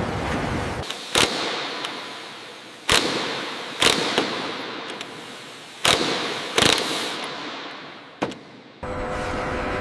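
A series of about eight sharp impacts at irregular intervals, a second or two apart, each ringing out and fading, with a steady hiss before the first and after the last.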